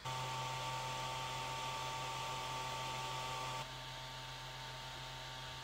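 3D printer's cooling fans whirring: a steady rush with a low hum and a couple of fixed whining tones, stepping down in level a little over halfway through.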